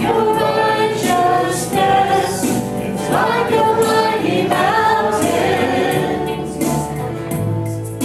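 A small worship band singing a hymn together, several voices with women's voices leading, over strummed acoustic guitar.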